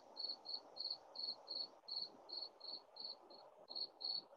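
A cricket chirping steadily and faintly, about three evenly spaced high chirps a second, over a faint hiss.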